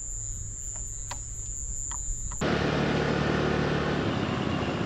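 Faint outdoor ambience with a steady high-pitched tone and a few faint chirps. About two and a half seconds in, a sudden cut to a louder, steady rushing noise with a low hum underneath.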